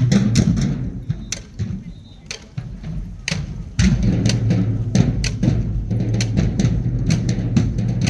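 A marching band drumline playing a marching cadence, with sharp snare hits over bass drums. The drumming drops back briefly, then comes in louder and fuller about four seconds in.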